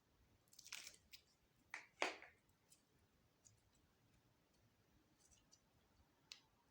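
Slime being squeezed and mixed by hand: short crackly squishes about a second in and again at about two seconds, then faint scattered clicks.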